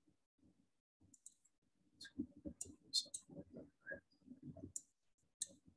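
Computer mouse buttons clicking: about seven short, sharp clicks at irregular intervals, as in drafting work on a computer.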